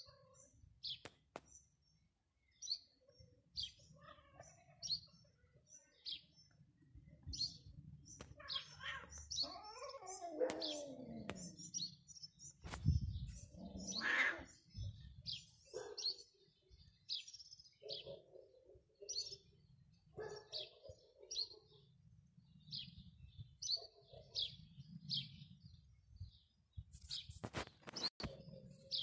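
Small birds chirping about once a second throughout. Through the middle, drawn-out cat yowls that slide down and then up in pitch come from a pair of ginger domestic cats mating, with a few sharp clicks near the end.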